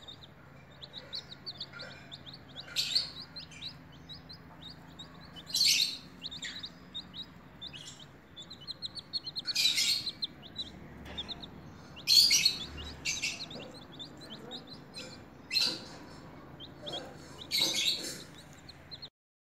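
Baby chick peeping rapidly and steadily, several high chirps a second, with a few louder, noisier sounds mixed in now and then.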